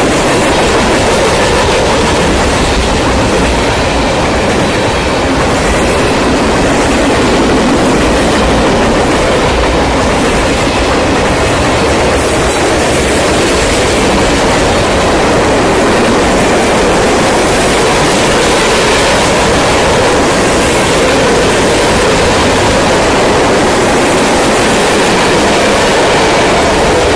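Freight train cars, mostly tank cars, rolling past close by: the steady, loud rolling noise of steel wheels on the rails.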